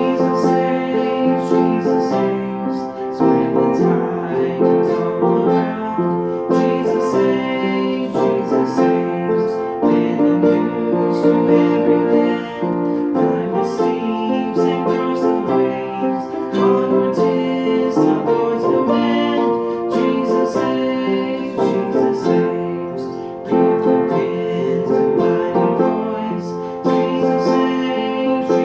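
Instrumental music: piano and guitar playing together at a steady level.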